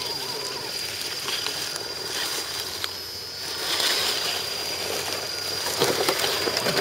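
Electric RC scale crawler trucks creeping over dry leaves and dirt: a rustling, crunching noise with a few sharp clicks, busier and louder near the end.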